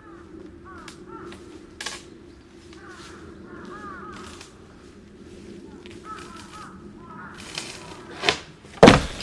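Crows cawing again and again in short arching calls over a steady low hum. Near the end comes a sharp click and then a loud thump, the loudest sound here.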